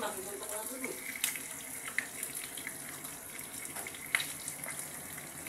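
Tinapa (smoked fish) frying in oil in a pan: a steady sizzling hiss broken by a few sharp pops and clicks, the loudest about four seconds in.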